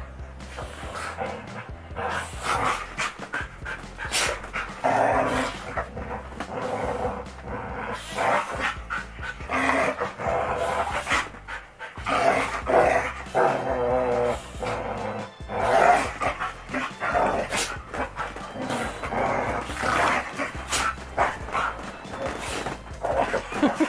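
Two dogs play-fighting, with repeated short barks and panting throughout, over background music.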